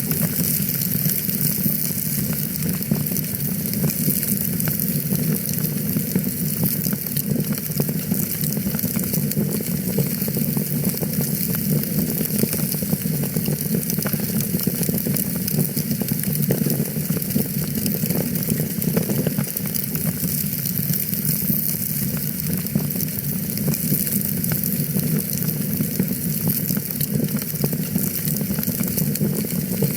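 Wood fire crackling steadily, a continuous hiss of burning with many small, rapid pops and snaps.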